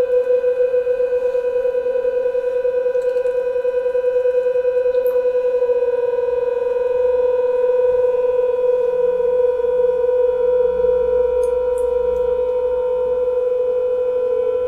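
Many mobile phones playing a sine-wave tone near 500 Hz together in unison, slightly out of tune with one another, so the tone beats with a quick wavering pulse that grows steadier from about halfway through.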